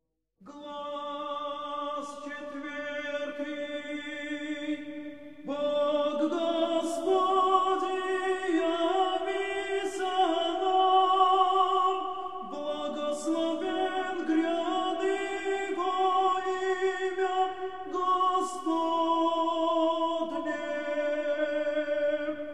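Russian Orthodox monastic choir of men singing unaccompanied, a traditional chant from Matins in long held chords that shift slowly in pitch. The singing begins about half a second in.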